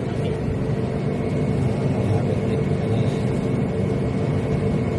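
Steady drone of a ship's engine-room machinery, with a faint steady high whine over it.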